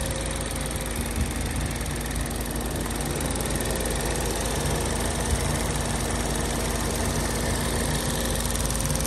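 Ford Focus ST's 2.0-litre turbocharged EcoBoost four-cylinder idling steadily.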